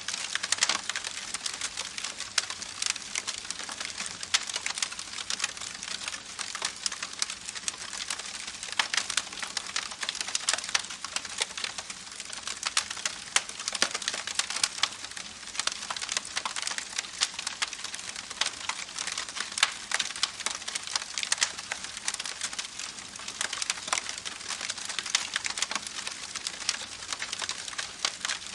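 Campfire crackling with a dense, steady scatter of sharp pops and snaps over a continuous hiss of running creek water.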